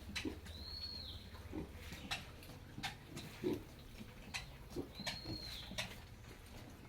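Pigs grunting in short, scattered grunts, with sharp clicks and a steady low hum underneath. A short high call sounds twice, about a second in and again about five seconds in.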